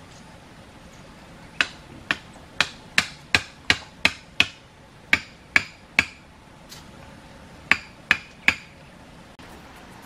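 Bamboo stakes being struck and driven into the earth: a run of sharp, ringing knocks about two a second, starting about one and a half seconds in, then a pause of over a second before three last knocks.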